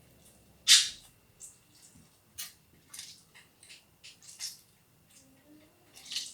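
Half a lemon being squeezed by hand: a series of short, irregular squeezing and squirting sounds, the loudest about a second in.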